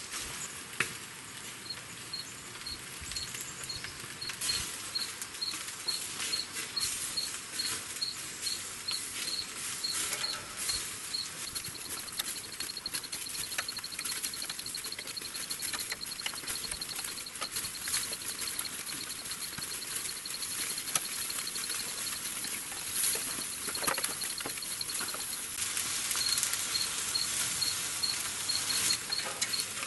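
Chicken thighs sizzling and crackling on the raised grate of an open pit barrel cooker over a hot charcoal fire, a steady hiss with many small pops. Over it, a high insect chirp pulses about twice a second and runs into a continuous trill for a stretch in the middle.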